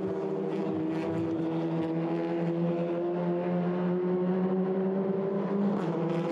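Track sound of TCR touring cars' turbocharged four-cylinder engines running at high revs, a steady engine note that holds its pitch and rises only slightly.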